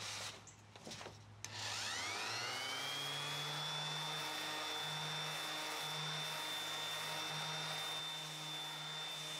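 A few handling clicks, then a random orbital sander switches on about a second and a half in. Its whine rises and settles into a steady high tone as it sands a wooden closet rod with 220-grit paper.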